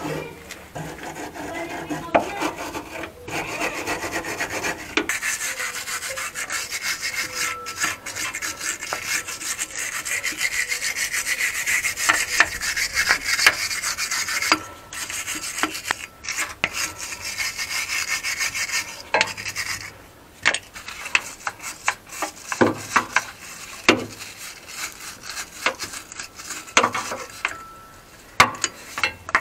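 Hand wire brush scrubbed back and forth over rusty underbody steel, a continuous scratchy rasping that stops briefly a few times. In the second half it breaks into shorter, more separate strokes.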